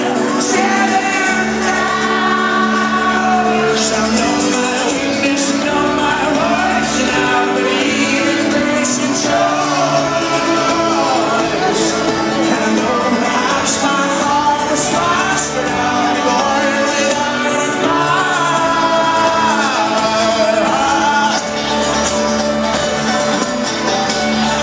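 Folk-rock band playing live with a sung vocal over the instruments, loud and steady throughout.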